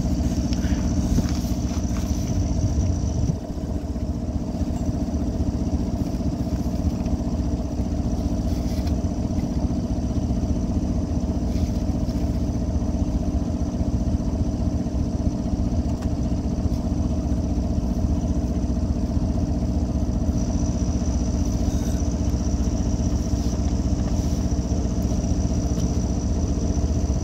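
A sailboat's engine running steadily, with an even low drone throughout.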